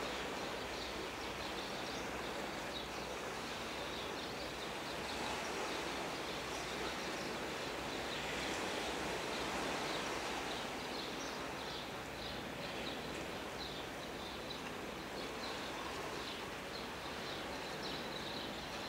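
Steady outdoor ambient noise with faint, high chirping repeated several times a second, swelling slightly about halfway through.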